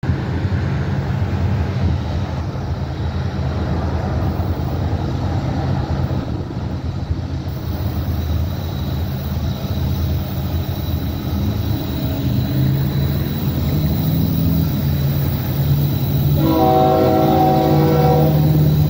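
Diesel freight train approaching with a steady low rumble. Near the end the lead locomotive starts sounding its multi-chime air horn.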